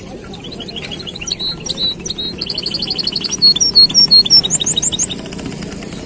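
Caged songbird singing: quick high twittering notes, then a fast rapid trill from about two seconds in, ending in a few rising notes near the end, over a low background murmur.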